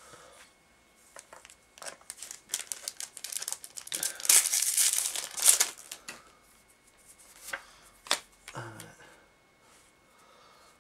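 A card booster pack wrapper being torn open and crinkled: a run of crackles and crinkles, loudest about four to six seconds in, then a couple of separate clicks.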